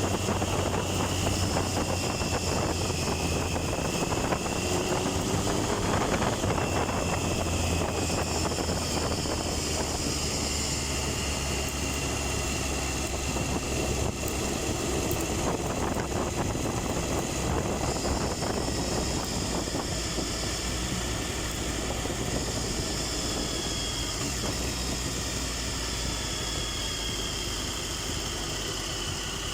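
Triumph Tiger 1050's inline-triple engine running steadily at low revs, easing gradually quieter.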